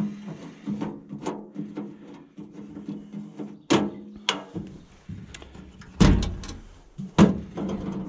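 Clunks, knocks and light rattles of hands working the steel blade-wheel cover and its knob on a Woodland Mills HM130 portable band sawmill, with four sharper clunks in the second half.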